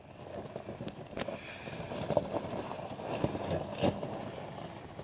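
Jeep Grand Cherokee (WJ) driving slowly over rough off-road terrain: steady rumble of the vehicle, with a handful of sharp knocks and rattles as it crosses bumps.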